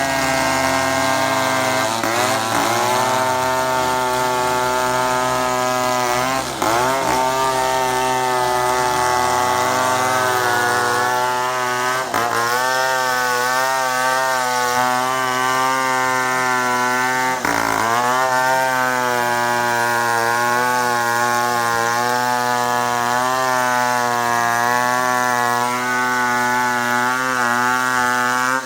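Chainsaw running hard at high revs, its engine note dipping and sweeping back up about four times, as when the chain is loaded in a cut and then frees.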